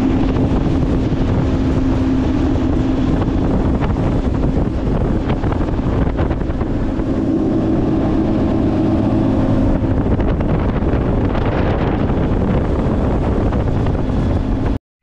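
Motorboat running at speed across open water: a steady engine drone under heavy wind noise on the microphone and rushing water off the hull. It cuts off suddenly near the end.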